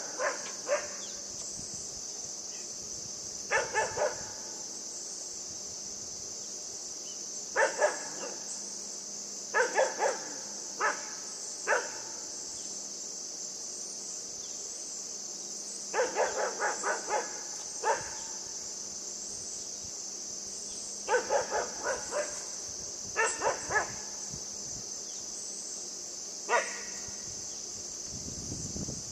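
Great Pyrenees–Siberian Husky mix puppy barking in short clusters of two to four barks, a few seconds apart, over a steady high-pitched hiss.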